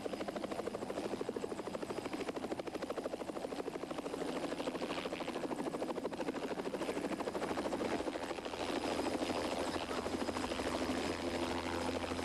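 Helicopter flying, its rotor blades beating in a fast, even chop, with a steady low engine hum that grows stronger about two-thirds of the way through.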